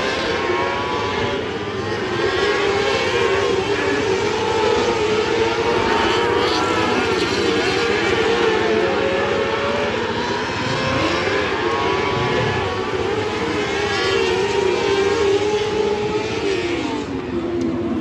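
Several dirt-track race car engines running hard together around the oval. Their overlapping pitches rise and fall as the cars speed up and slow down through the laps.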